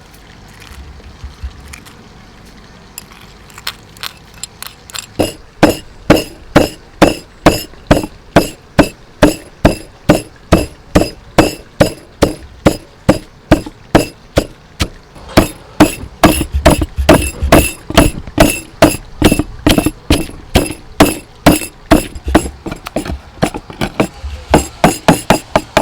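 Repeated sharp kitchen strikes in a steady rhythm, about two to three a second, each with a slight ring; they start faintly a few seconds in, become loud, and quicken a little in the second half.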